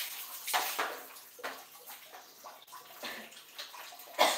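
Bath water poured from a plastic dipper, splashing onto the body and a tiled floor in several separate splashes, the loudest near the end.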